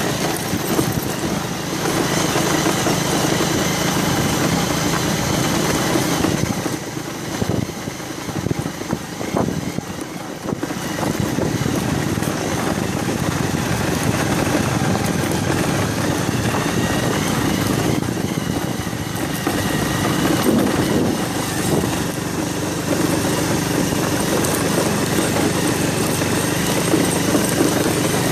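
Motorcycle engine running while riding over a rough dirt road, with road and wind noise. The level drops for a few seconds about seven seconds in, then picks up again.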